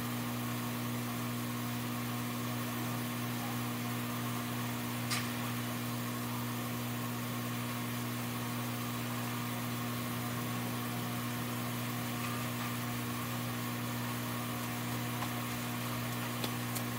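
Steady mechanical hum of a running motor over a faint hiss, unchanging throughout, with one brief click about five seconds in.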